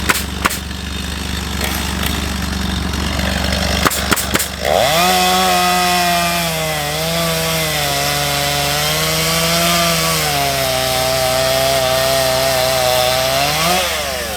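Chainsaw revving up and running for about nine seconds, its pitch wavering up and down as it cuts wood, then dropping back near the end. Before it come a few sharp cracks, and a steady low engine hum runs underneath.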